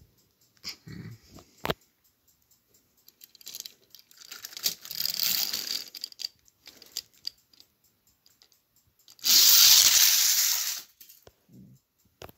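Push-along toy engines being rolled by hand along plastic toy track, with clicks and scraping noise in bursts; the loudest, a rushing rolling noise of about a second and a half, comes about nine seconds in.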